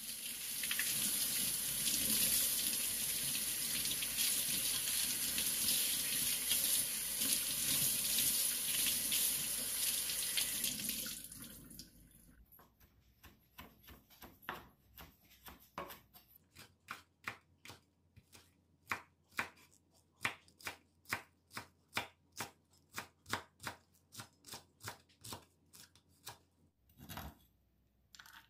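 Kitchen tap running steadily over greenbrier shoots being rinsed by hand in a stainless sink, stopping after about eleven seconds. Then a large knife chops the stems on a bamboo cutting board, about two even cuts a second. Near the end there is a short scrape as the chopped pieces are pushed onto a plate.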